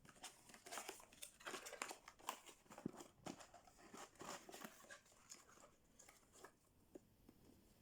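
Faint rustling, crinkling and light clicks of packaging being handled while a box is unpacked, a scatter of short sounds that thins out near the end.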